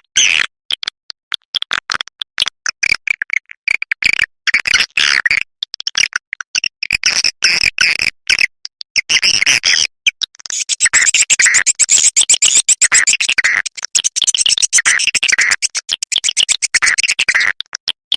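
Swiftlet lure-call recording playing: rapid, twittering chirps and clicks of swiftlets, in broken bursts at first and then a denser, nearly unbroken run of chirping through the second half. This is a sound track played to draw swiftlets into a nesting house.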